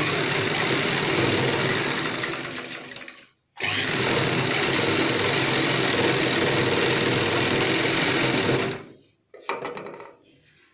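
Black straight-stitch sewing machine running at a steady speed while stitching a seam. It runs for about three seconds, stops briefly, then runs for about five seconds more and stops near the end.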